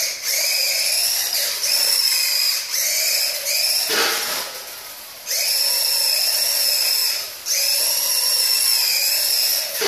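Tamiya Grasshopper RC buggy's small brushed electric motor and gearbox whining at full throttle, a steady high-pitched whine. It eases off around four seconds in and briefly again about seven and a half seconds in, then picks back up each time.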